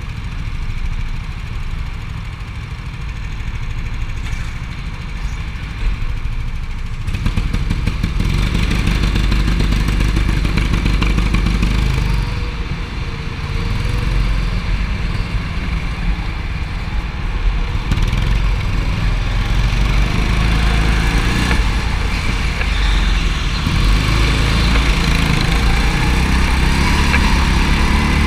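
Go-kart engine heard from on board during a lap, quieter for the first several seconds and louder from about seven seconds in, its pitch rising and falling as the kart speeds up and slows for corners.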